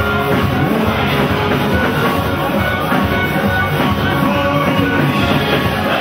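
Loud live praise music: a band with a drum kit keeps a steady driving beat while the congregation sings and dances along.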